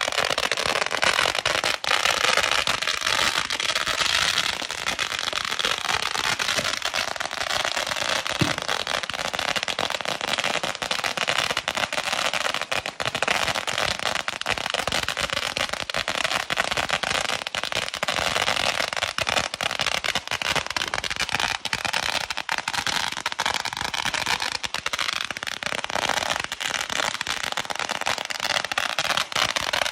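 Ground fountain fireworks spraying sparks, with a steady hiss and dense, rapid crackling pops that run on without a break.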